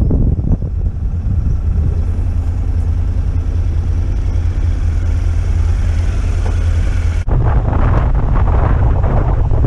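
Honda NC750X motorcycle engine running at low speed with a steady low drone. About seven seconds in it cuts abruptly to heavy wind buffeting on the camera microphone at road speed.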